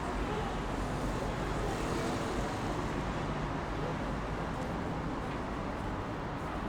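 Busy city street traffic: a steady, continuous rumble of cars passing.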